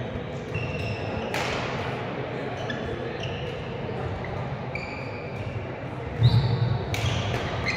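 Badminton doubles rally on an indoor court: shoes squeaking on the floor, sharp racket hits on the shuttlecock, and a heavy thump about six seconds in, all ringing in a large hall.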